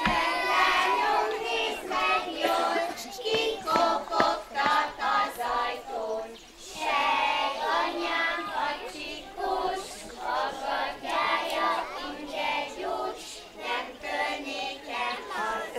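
A group of young children singing a folk song together, pausing briefly about six seconds in, with scattered short knocks.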